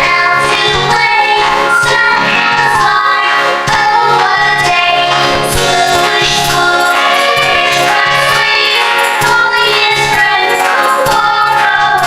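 Music: a children's song with layered, effect-processed singing that sounds like a choir.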